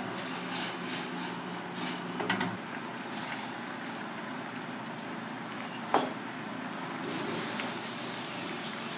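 Broth in an aluminium pan simmering on a gas burner, with a steady hiss. A few knocks and clatters from the pan being handled during the first couple of seconds, a low hum that stops about two and a half seconds in, and one sharp knock about six seconds in.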